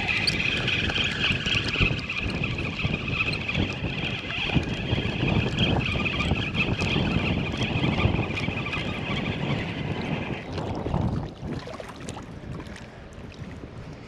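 Wind buffeting the microphone on an open riverbank. Over it, a steady high-pitched whir runs for about ten seconds and then cuts off.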